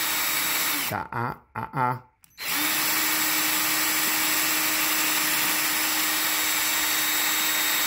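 Electric drill boring a pilot hole down into a wooden ladder rail. It runs steadily, stops about a second in for a few short trigger blips, then runs steadily again from about two and a half seconds on.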